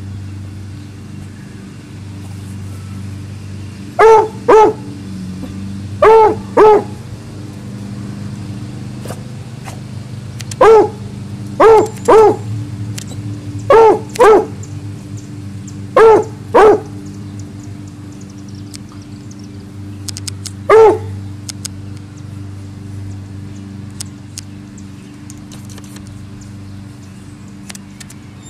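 A dog barking: twelve short barks, mostly in pairs about half a second apart, between about four and twenty-one seconds in, over a steady low hum.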